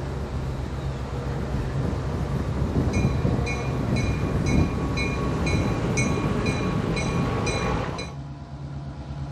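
EMD GP10 diesel locomotive's 16-cylinder two-stroke engine running with a steady low hum, while a bell rings about twice a second from about three seconds in. The bell and the higher noise stop abruptly near the end, leaving the engine hum.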